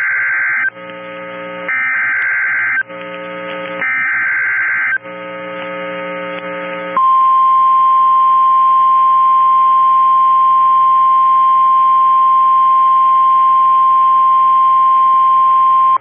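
NOAA Weather Radio Emergency Alert System alert: the SAME header's buzzing digital data bursts, three blasts about a second long with a second between them, then from about seven seconds in the steady single-pitch warning alarm tone, which announces a severe thunderstorm warning.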